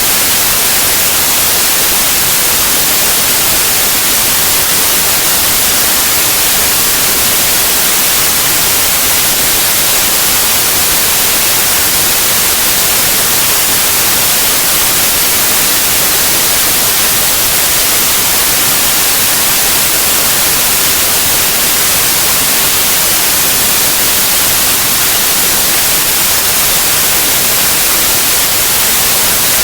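Steady, loud white noise: an even, unbroken hiss with no tones or changes, strongest in the high end.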